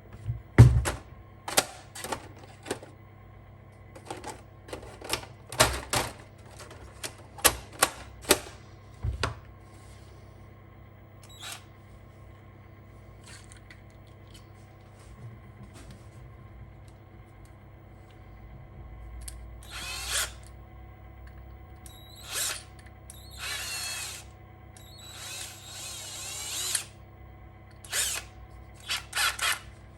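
Clicks and knocks of a plastic ink cartridge and tools being handled, then several short bursts of a small drill bit boring into the cartridge's plastic casing in the later part.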